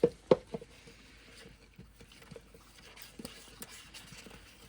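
Two sharp knocks close together right at the start and a softer one just after, then scattered light clicks and taps: hard objects being knocked and handled.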